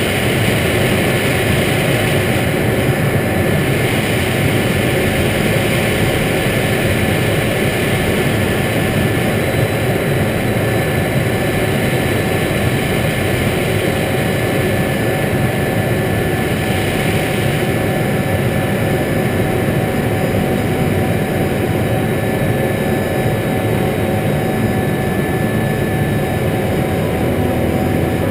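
Steady cockpit noise of an Eclipse 500 light jet in flight: the rush of its twin Pratt & Whitney PW610F turbofans and airflow over the airframe, with a few faint constant tones in the hum.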